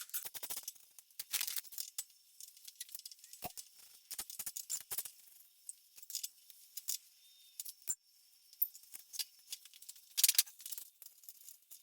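Small metal tools and parts being handled: irregular light clicks and rattles, with a louder cluster about ten seconds in.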